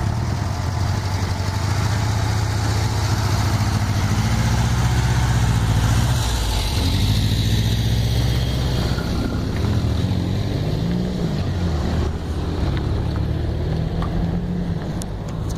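A road vehicle's engine running close by, a steady low drone whose pitch dips and rises a few times, over road and traffic noise.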